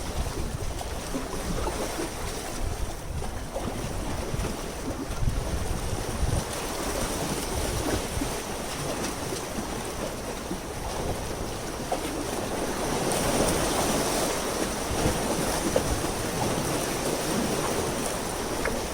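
Wind buffeting the microphone over water lapping at a harbour, a continuous gusty rumble with a steady hiss.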